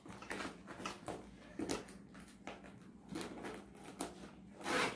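Clear plastic zip pouch crinkling and rustling as items inside it are handled, in short irregular bursts with a louder rustle near the end.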